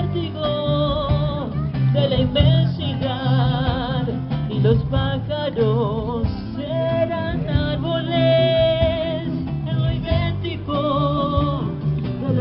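Live acoustic band playing a slow song: strummed and plucked acoustic guitars and bass under a singer holding long notes with a wide vibrato.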